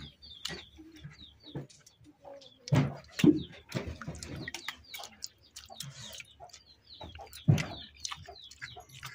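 Hens clucking and small birds chirping, over close eating sounds of fingers working rice and curry in steel bowls and chewing, with a few louder thumps.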